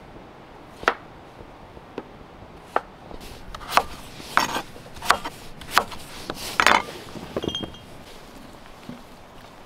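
A kitchen knife cutting raw potato into chunks on a wooden chopping board: about nine uneven chopping knocks, coming faster in the middle. Near the end comes a light metallic clink, as potato pieces go into the metal pressure-cooker pot.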